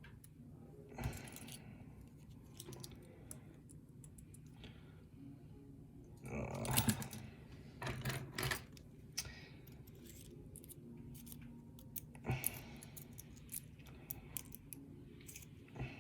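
Small metal clicks and rattles of a pin-tumbler lock and its key being handled and worked while it is reassembled, the lock refusing to lock back up, with a few louder bursts of rattling near the middle.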